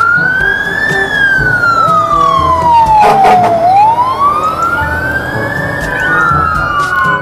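Fire engine siren wailing, climbing and falling slowly in pitch about twice, over a low rumble.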